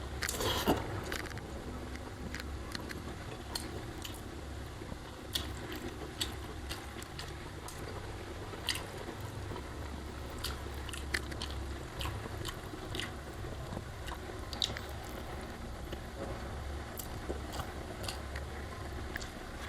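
Close-miked chewing and eating sounds: soft wet mouth noises with scattered small clicks of food and utensils, over a steady low background hum.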